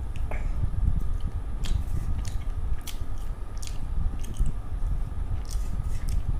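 A person chewing a mouthful of rice and fish curry close to the microphone, with scattered sharp mouth clicks.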